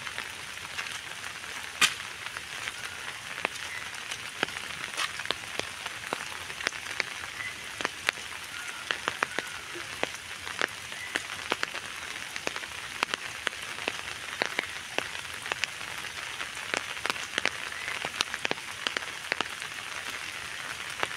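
Rain falling on open water: a steady hiss with many sharp drop ticks throughout, one louder tick about two seconds in.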